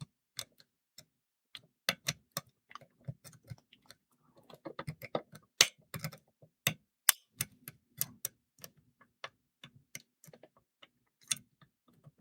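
Lock pick and tensioner working inside a small Ace four-lever padlock: irregular sharp metal clicks as the levers are picked, with a short patch of scraping about five seconds in.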